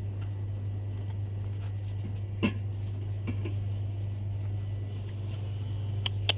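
Steady low hum of the shop's background, with a sharp click about two and a half seconds in and a few light clicks near the end from the handheld phone being handled.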